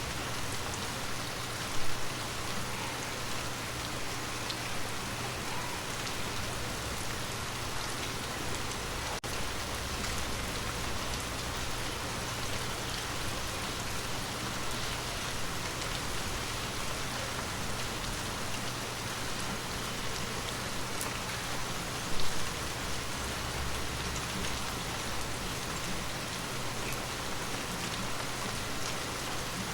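Water drops tapping on a glass surface in a dense, steady patter like rain on a window, with two louder single drops, about two seconds in and again around twenty-two seconds in.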